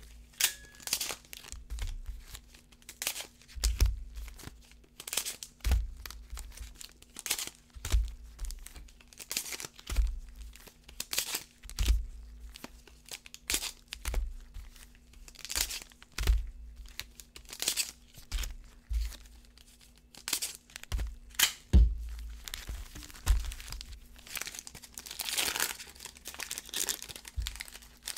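Foil trading-card pack wrappers being opened one after another with sharp crinkles and soft knocks every second or two, and a longer stretch of crinkling near the end.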